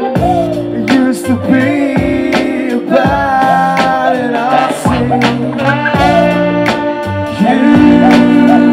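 Live hip hop/groove band playing, with a beat about once a second, bass and held horn lines. It gets louder near the end.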